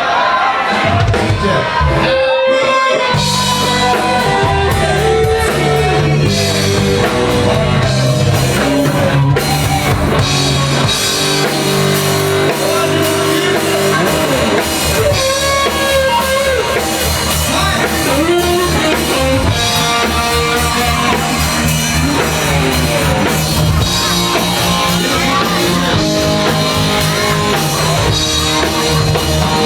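Live rock band playing with singing over electric guitar, bass and drum kit. The full band comes in steadily about three seconds in after a short lead-in.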